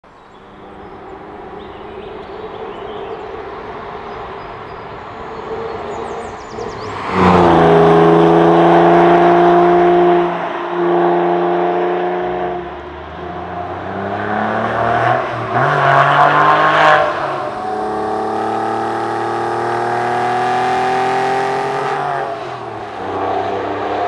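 Porsche 996 Carrera 4S's 3.6-litre flat-six under hard acceleration, growing louder over the first seven seconds. Its pitch drops and then climbs again several times as it changes gear, and it eases off near the end.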